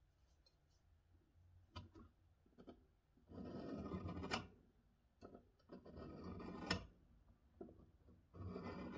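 Pointed steel scribing tool scratching a marking-out line into a steel plate along a steel rule: three scratchy strokes of about a second each, with a few light clicks before them.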